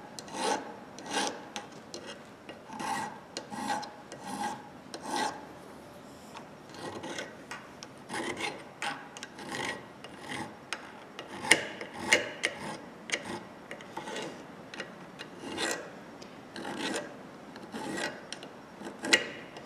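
Hand file rasping on a small metal ratchet part in short, uneven strokes, about one or two a second, taking down a replacement part that is a hair oversize.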